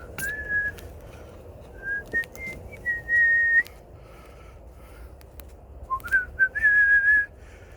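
Someone whistling a few clear held notes with small slides between them, in two short phrases; the last note near the end is the longest.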